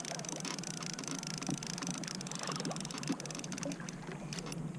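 Fishing reel being cranked to bring in a trolled line, with a run of small ticks, while water trickles and gurgles against the kayak's hull.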